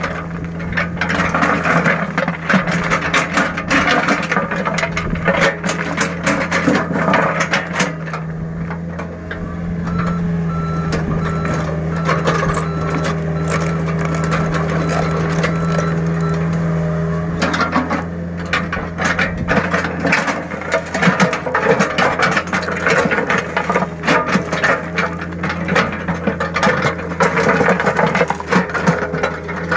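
Small excavator's diesel engine running steadily under working load, with the clatter and scrape of its bucket and tracks working sand. About a third of the way in, a high alarm beeps about twice a second for several seconds.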